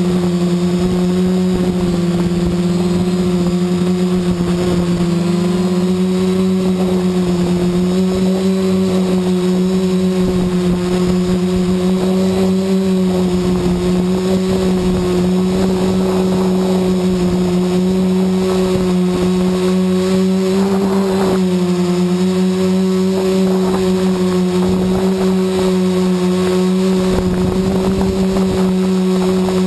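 Quadcopter's electric motors and propellers running in a hover, a loud steady buzzing hum whose pitch shifts slightly now and then, over an irregular low rumble.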